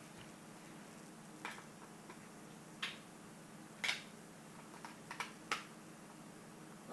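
Scattered light clicks and taps, about half a dozen with a quick double near the middle and a cluster later on, from handling the paintball loader's plastic shell and new feedgate, over a faint steady low hum.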